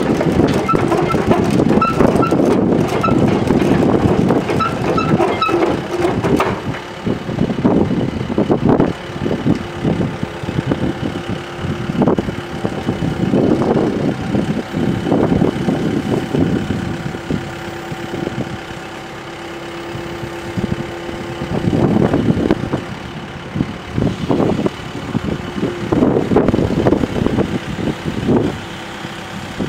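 Hitachi EX75US-5 compact excavator's diesel engine running, its note swelling and easing again and again as the hydraulics work the boom, arm and bucket and swing the upper structure. A run of short high beeps sounds in the first few seconds.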